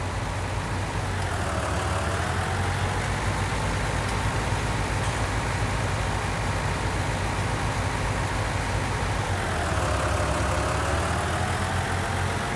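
Tractor engine sound: a steady low hum with a higher whine above it that drops in pitch and climbs back up, twice.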